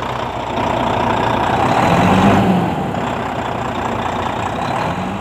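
Volvo FMX 400 truck's 13-litre straight-six diesel engine idling, heard from beneath the truck, getting briefly louder about two seconds in.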